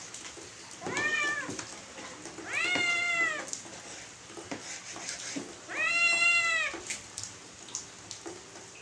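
A domestic cat meowing three times, drawn-out calls that each rise and then fall in pitch.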